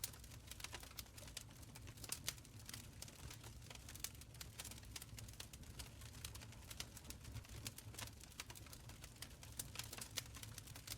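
Open fire crackling: faint, irregular sharp snaps and pops over a low, steady rumble.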